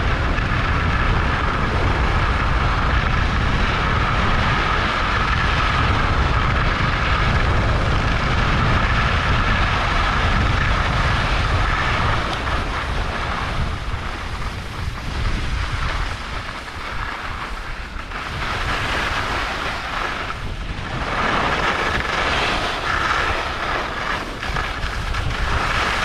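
Wind buffeting the microphone and skis hissing over the snow during a downhill ski run. The wind rumble is heaviest in the first half and eases about halfway through, leaving patchier ski swishes.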